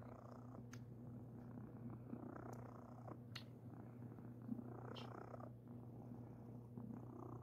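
Flame point Siamese cat purring softly, rising and falling in slow swells with its breaths, with a few faint clicks.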